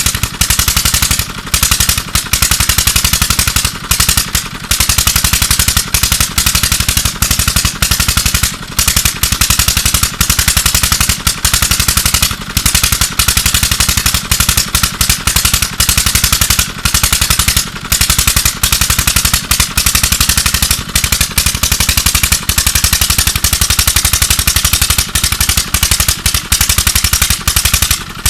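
Tube well pump engine running hard with a loud, rapid, sharp-edged exhaust beat, broken by brief gaps now and then. This is the engine's very bad sound, the sign of an engine in poor condition.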